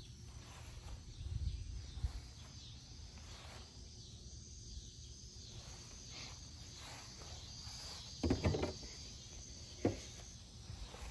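Faint steady chirping of insects in the grass, with a low rumble on the microphone and two brief louder noises about eight and ten seconds in.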